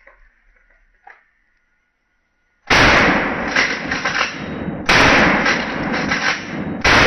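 Three shotgun blasts about two seconds apart, each followed by a long rolling echo. The first comes after a few seconds of near quiet and the last lands near the end.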